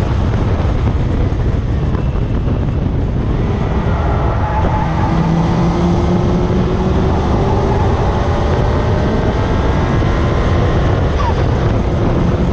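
Car driving fast on a race circuit, heard from a camera mounted low at the front: heavy wind and tyre noise over the engine, whose note rises slowly through the middle.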